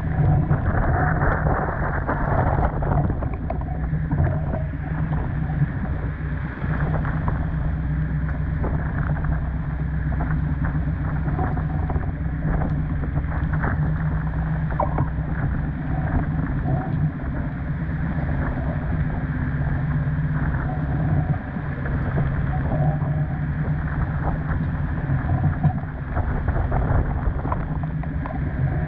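Storm wind buffeting the microphone in a steady low rumble, over water rushing along a sailboat's hull as it runs through rough water, with constant spattering of rain and spray.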